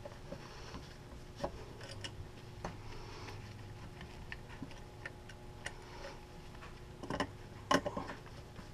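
Faint, scattered small clicks and ticks of wire leads being unfastened and moved at a variable frequency drive's terminal block, over a low steady hum, with a few louder clicks near the end.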